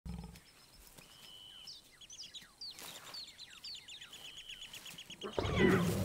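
Birds calling with short falling whistles and a fast run of repeated high notes; about five seconds in, a male lion breaks in with a loud, deep growl.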